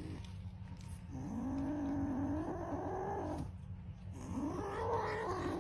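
A domestic cat giving two long, low yowls, the first starting about a second in and the second near the end.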